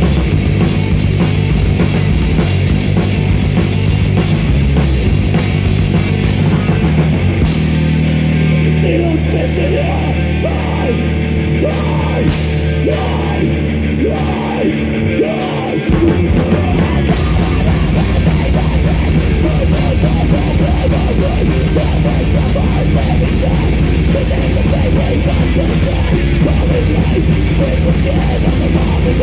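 Heavy metal band playing live and loud, with distorted guitars, bass and drums. About seven seconds in the band drops back to a held low note with a melody line over it, and about sixteen seconds in the full band crashes back in.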